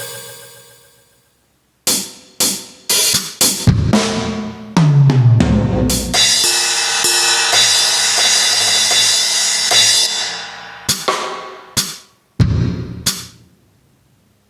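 Aroma TDX-15S electronic drum kit played through its sound module: a run of separate drum strikes, then a deep drum hit that falls in pitch. Cymbal wash rings for several seconds, and a few last hits follow before the sound dies away.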